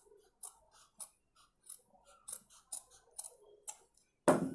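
Tailor's scissors snipping through cloth in about ten short cuts that come faster toward the end. Near the end comes a louder clatter.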